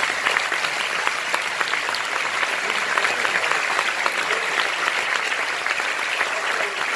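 Audience applauding: the dense, steady clapping of many hands.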